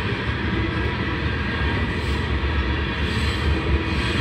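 Freight train cars rolling past, wheels running on the rails in a steady, unbroken noise.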